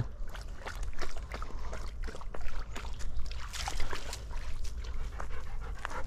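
Belgian Shepherd dog panting as it drinks and wades at the edge of a shallow creek, with water splashing and many irregular light crackles.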